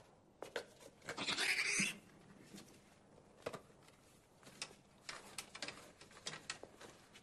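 Light clicks and knocks of items being handled on lab shelves, with one short breathy burst about a second in.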